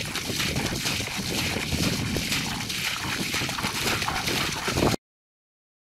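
A bucket scooping and splashing muddy water as it is bailed out of a flooded ditch, with steady sloshing and the slap of thrown water. The sound cuts off abruptly about five seconds in, leaving dead silence.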